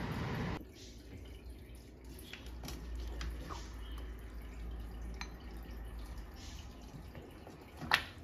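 Metal ladle scooping thick stew from a pot and pouring it into a bowl: soft wet slops and drips of gravy with small scattered clinks, then one sharp clink of the ladle against the bowl near the end.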